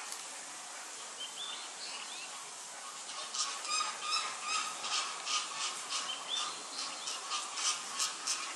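Birds chirping: a few short high notes, then from about three seconds in a run of sharp calls repeated two to three times a second, over steady outdoor background noise.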